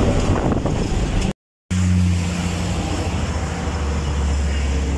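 Rumble of engine and road noise from inside a moving bus, which cuts off abruptly about a second in; after a brief gap, steady roadside traffic noise with a low engine hum.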